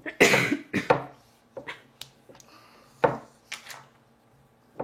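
Play-Doh tools and molds knocking and scraping on a tabletop: a handful of sharp taps and short scrapes, the loudest just after the start.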